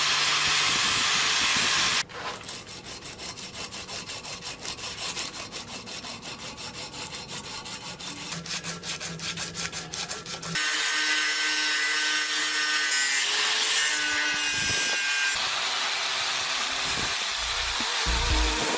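Two seconds of steady hiss, then quick back-and-forth rubbing strokes, about three to four a second, typical of hand sanding or sharpening. About ten seconds in, the strokes give way to a steady machine-like noise with a few held tones for the rest.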